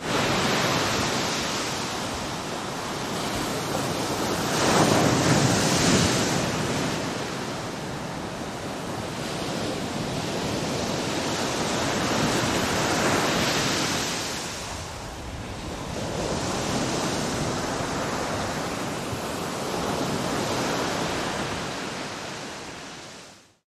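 Ocean surf: waves washing in as a steady rushing noise that swells and falls every several seconds, fading out near the end.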